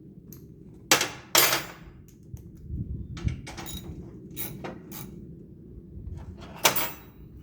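Clanks and knocks of lawn-tractor parts being handled and pulled apart during disassembly: two loud strikes about a second in, a third near the end, and lighter clicks and taps between.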